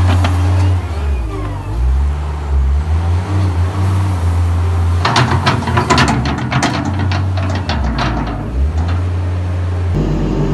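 Weidemann compact loader's engine running under load, rising and falling as the loader works. About halfway through comes a quick run of clacks and rattles from the bucket scraping and knocking as it works the bedding.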